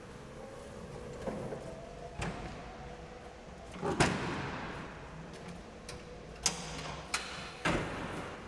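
A steady faint hum with several sharp knocks echoing in a large hard-floored hall. The loudest knock comes about four seconds in, and three more come close together near the end.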